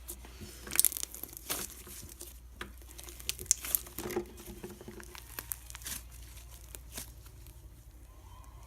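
Fluffy slime being poked and squished by hand, giving off irregular crackling and popping clicks, densest about a second in and around the middle.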